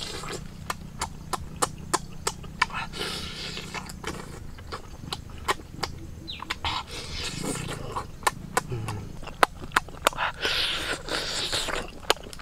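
Person eating cooked octopus with exaggerated mouth noises: sharp wet smacks of the lips and chewing, about two to three a second, with a few longer noisier stretches of chewing.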